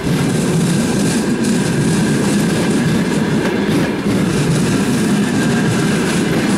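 Passenger coaches of a departing express train rolling past close by: a steady rumble of steel wheels on the rails, with a few knocks from the wheels over the rail joints.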